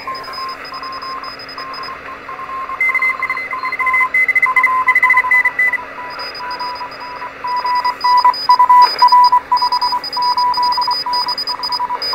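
Morse code received on 40 metres through a 1960s Heathkit HR10B receiver's speaker: a distant amateur station answering the call, its keyed tone of about 1 kHz sending dots and dashes over band hiss. A second, higher-pitched Morse signal keys along with it for a few seconds near the middle.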